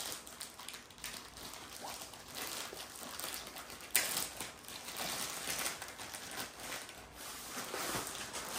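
Clear plastic wrapping crinkling and rustling as it is pulled and peeled off a rolled diamond-painting canvas, with a sharp crackle about four seconds in.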